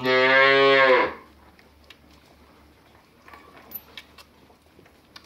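A single low moo from cattle, about a second long and held at a steady pitch, with faint soft ticks afterwards.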